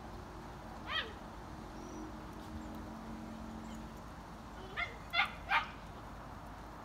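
Weimaraner puppies yelping: one short yelp falling steeply in pitch about a second in, then three quick high yips in a row near the end.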